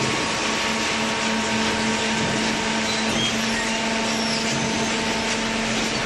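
Hydraulic cardboard baler's power unit running: a steady hum with a constant tone over even machine noise.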